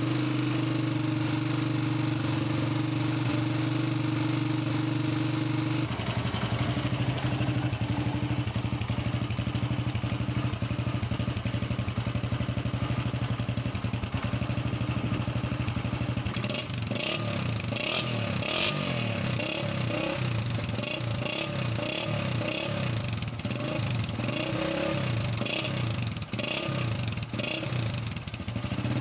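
Honda CG-125's air-cooled single-cylinder four-stroke engine running with tappet clatter; the tappets were left loose on the freshly rebuilt engine with its new piston. The engine note changes about six seconds in, and sharp irregular clicks come in from about halfway through.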